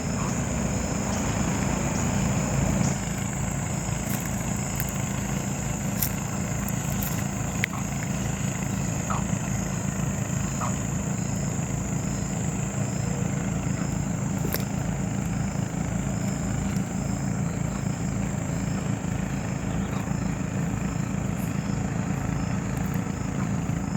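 A small engine running steadily, heard as a fast, even low pulsing, with a faint steady high tone above it and a few scattered clicks.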